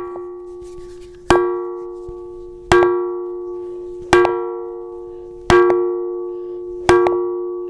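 A ringing rock, a sonorous boulder, struck five times with a hand-held stone, evenly about a second and a half apart. Each blow is a sharp clang that rings on like a bell, one clear low note with several higher overtones, fading slowly until the next strike.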